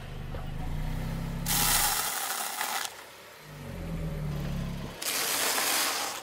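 Car engine running low as a tyre rolls slowly over things on asphalt, with two loud bursts of crunching as objects are crushed under the tyre; the second is a pile of dry instant noodles being flattened.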